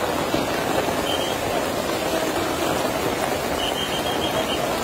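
Heavy rain pouring steadily, mixed with the rush of fast-flowing floodwater.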